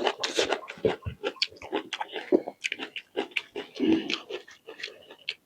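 A person chewing and biting food close to the microphone: a quick, irregular run of short wet mouth clicks and smacks.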